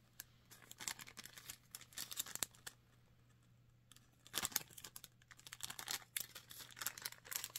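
Small clear plastic bag crinkling and rustling in the hands, in short irregular crackles, with a quiet pause in the middle and a louder burst of crinkling about four and a half seconds in.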